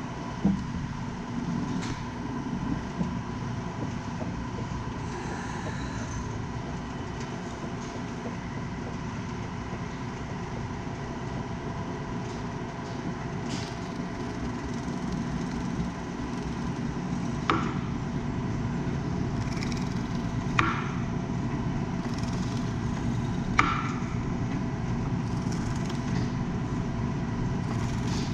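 Jet JDP-20VS-3 variable-speed drill press, on three-phase power, running steadily with a motor hum and a constant whine while its bit drills holes through scrap wood. A few sharp knocks come through, the loudest about two thirds of the way in.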